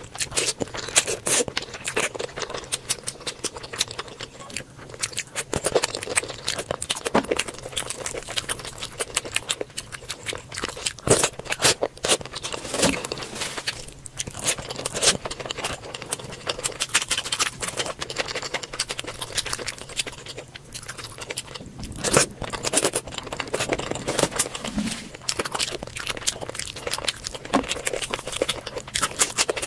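Close-miked ASMR eating sounds of curry and rice eaten by hand: wet chewing and lip smacks, with squelching as bare fingers tear chicken and mix curry into rice. It is a dense run of small wet clicks and crackles.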